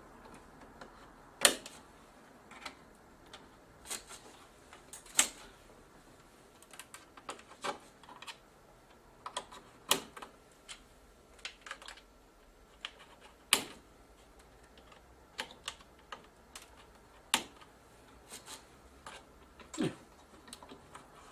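Irregular sharp clicks and taps from cable connectors being pushed home into their sockets on the TV's circuit boards and the cables being handled, with a few louder clicks among many light ones.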